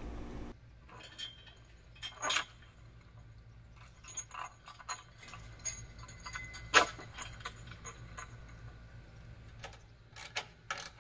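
Metal hardware and hand tools clinking and knocking in irregular, scattered strikes, the loudest about seven seconds in, while 2x4 supports are bolted to a canoe trailer's bent rear upright.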